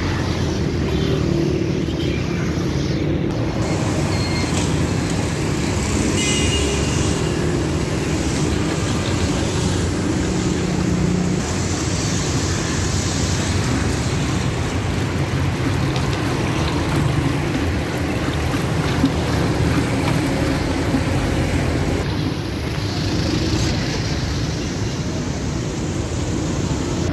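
Steady street traffic noise from cars on the road, a continuous low rumble without pauses.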